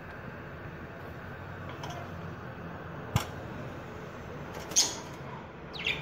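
Budgerigars giving two short, high chirps near the end, the second falling in pitch, with a single sharp click about three seconds in, over steady low background noise.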